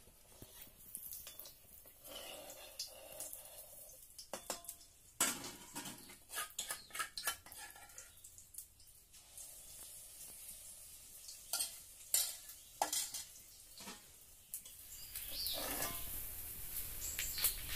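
A metal ladle clinking and scraping against an iron wok while pitha batter fries in hot oil, with a faint sizzle that grows toward the end.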